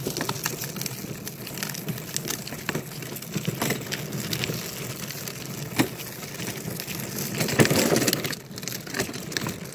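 Hard plastic wheels of a children's pull wagon rolling over rough asphalt: a continuous rumbling rattle with scattered clicks and knocks, loudest about three-quarters of the way through.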